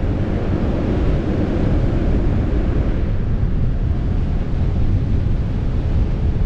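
Steady wind rumble buffeting the microphone of a camera mounted on the roof of a fire truck at highway speed, with the truck's road noise underneath.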